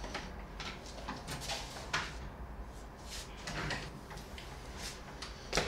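A few scattered soft knocks and rustles in a quiet room, with a sharper knock about two seconds in and another near the end.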